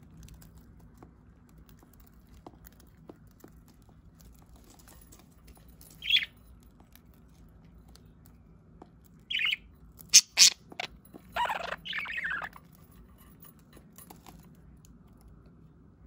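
Pet budgerigar calling in short chirps and squawks: a single chirp about six seconds in, another just after nine seconds, then two sharp squawks and a longer warbling chatter around ten to twelve seconds in.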